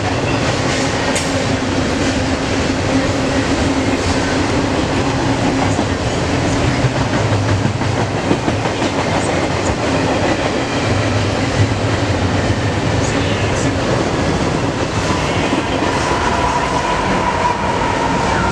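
BNSF freight train of intermodal container and trailer cars passing at speed, with a steady rumble and rattle of steel wheels on the rails. A steady whine joins near the end as a BNSF diesel locomotive comes by.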